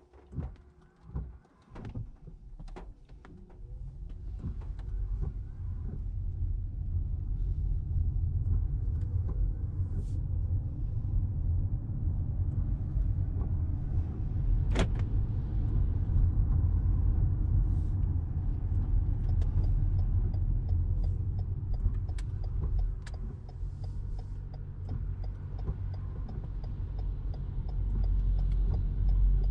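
Toyota Crown Athlete hybrid heard from inside the cabin: almost quiet at first, then a low road rumble from the tyres on the wet street builds as the car pulls away and holds steady. Scattered light ticks run through it, with one sharper click about halfway.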